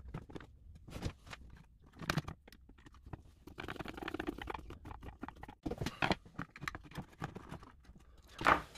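Handling noise from reassembling an electronics unit: scattered clicks, taps and rustling as fingers and a screwdriver work the power supply board and wiring back into a plastic case. There is a louder knock near the end.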